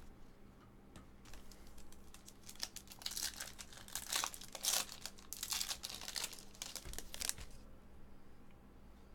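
Foil trading-card pack wrapper being torn open and crinkled by hand. The crackling starts about a second in, is loudest in the middle, and stops about a second and a half before the end.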